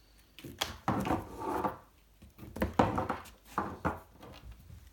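Parts of a 3D printer kit being handled and set down on a table: a run of hard knocks and clunks, several close together, with some rustling between them.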